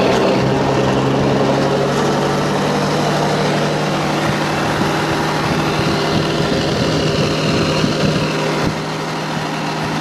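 Heavy truck's diesel engine idling steadily, with a few knocks near the end.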